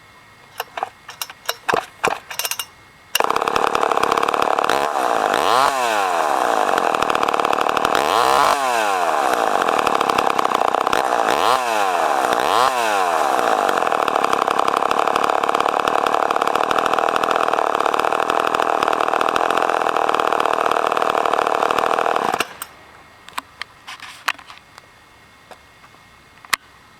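Poulan 245 two-stroke chainsaw starting after a few seconds of clicks and knocks, then running loudly and being revved up and down several times before it cuts off suddenly, followed by more scattered clicks.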